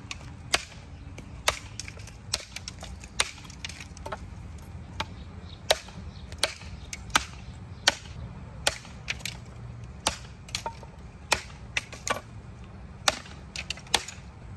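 A machete hand-forged from leaf spring chopping through a green stalk stood on a wooden block: a long run of sharp chops, about one and a half a second, some coming in quick pairs.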